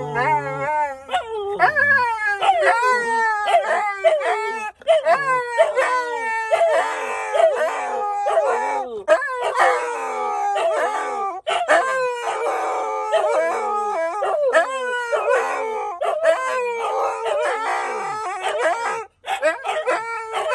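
Two huskies vocalizing back and forth in a near-continuous string of short, wavering howls that slide up and down in pitch, the two dogs at times calling at once.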